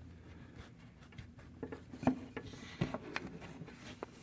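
Small wire grid being pressed and bent down over a wooden block by hand: a few light clicks and taps of wire against wood, with a faint scrape, mostly in the second half.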